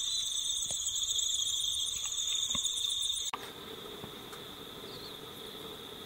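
Insects chirring steadily in a high, finely pulsing trill. About three seconds in the sound cuts abruptly to a quieter, lower steady chirr.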